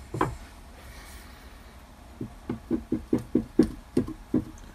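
Bench hand arbor press being levered down to press a bronze threaded insert flush: a single knock, then, from about halfway through, a quick run of about ten short knocks, roughly four a second.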